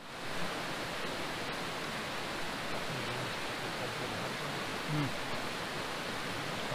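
Steady rush of a shallow bush stream running over stones.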